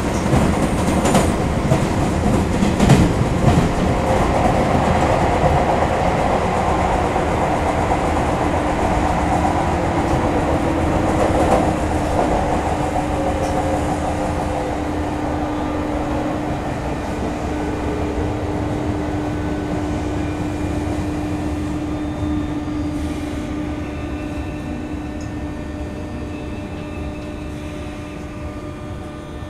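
JR 201 series electric train running on the rails, with a steady whine and a few wheel clacks near the start. The running noise grows gradually quieter as the train slows.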